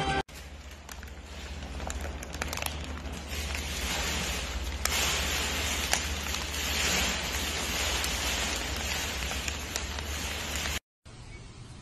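Crinkling and crackling of a crumpled paper snack wrapper as a raccoon handles it at its mouth, with many small crackles, over a low steady hum. It cuts off suddenly near the end.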